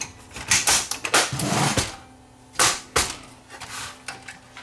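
Sharp clicks and knocks of plastic and sheet-metal parts as the front panel of a JVC S-VHS VCR is handled and fitted onto the chassis, with a short scraping rattle about a second and a half in.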